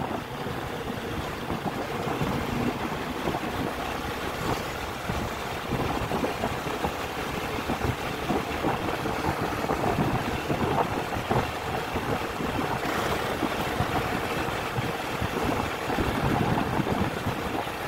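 Steady rush of wind on the microphone and road noise from a vehicle riding along a street, with uneven buffeting throughout.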